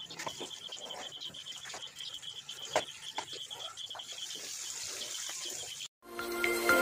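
Chicken frying in a wok of oil over a wood fire, with scattered crackles and pops, under a steady pulsing insect trill. About six seconds in the sound cuts out briefly and music comes in, growing louder.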